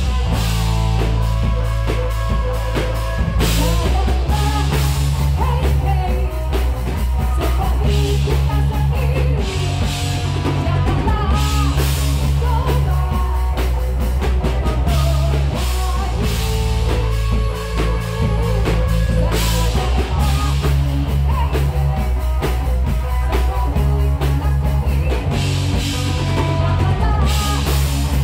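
Live rock band playing: drum kit, bass guitar and electric guitar, with vocals sung into microphones. The bass is heavy and the drums hit steadily throughout.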